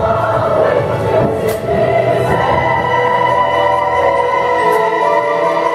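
Opera chorus of children and adults singing together, settling into a long held chord a little over two seconds in.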